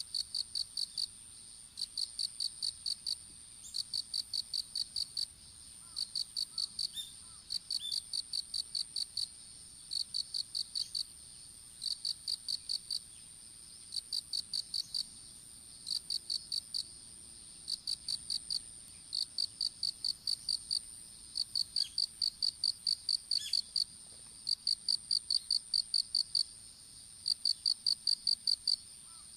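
Insects calling in a field: one repeats short trains of quick high chirps about every two seconds, over a steady, higher trill from another.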